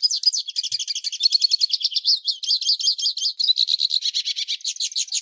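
Hooded siskin (pintassilgo) singing its metallic song: a fast, unbroken run of high twittering notes.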